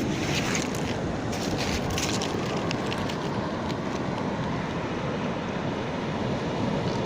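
Steady rush of wind and surf on the beach, with wind buffeting the microphone and a few short crackles in the first three seconds.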